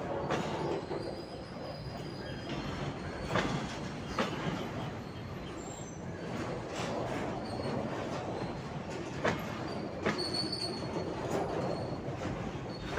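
BCACBM covered car-carrier freight wagons rolling past close by, with a steady rumble of wheels on rail. Sharp clicks come in pairs from the wheels crossing rail joints, and there are brief thin wheel squeals.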